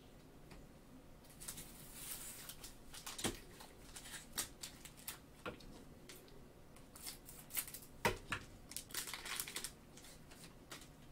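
Plastic cellophane trading-card pack crinkling as it is handled and torn open, with scattered soft clicks and rustles of the cards, a few of them sharper.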